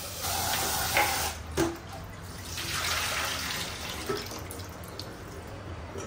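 Kitchen tap running into a pressure cooker pot of taro roots as they are rubbed clean in a steel sink, with a few light knocks of the pot, then the washing water tipped out into the sink.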